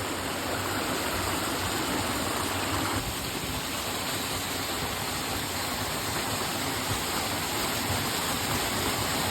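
Rushing water of a creek and small waterfall: a steady, even hiss of falling and flowing water.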